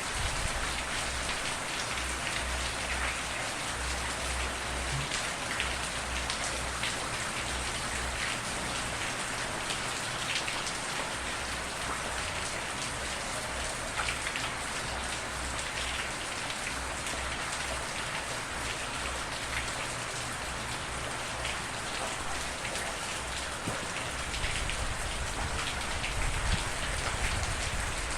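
Steady rain falling, a dense, even patter of drops with no thunder, over a faint low rumble.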